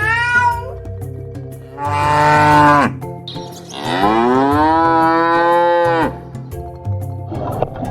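A cow mooing twice over background music with a steady beat: first a short moo that drops in pitch as it ends, then a longer, drawn-out moo.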